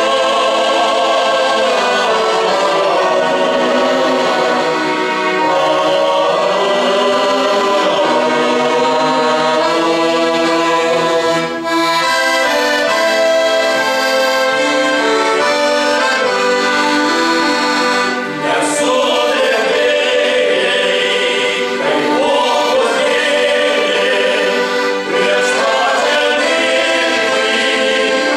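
Accordion playing held chords that change in steps, with men's voices singing together in harmony, the voices coming through more strongly in the second half.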